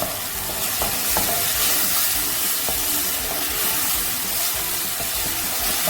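Chopped onions, garlic and fresh tomato sizzling steadily in sunflower oil in a pot, with a few light clicks as the pan is stirred.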